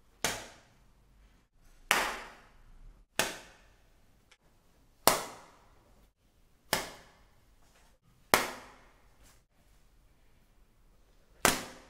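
Origami paper poppers snapped with a flick of the wrist, the folded paper flap whipping out with a sharp bang. Seven loud cracks come at uneven gaps of one to three seconds, each dying away quickly.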